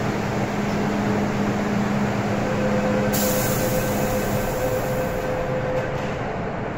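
MTR M-train electric multiple unit standing at an underground platform as its doors and the platform screen doors close, its equipment giving a steady hum with a couple of steady tones.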